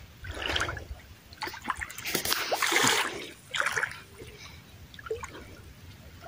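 Water splashing as a hooked fish is brought to a landing net in shallow water: a few irregular splashes, the loudest about two to three seconds in.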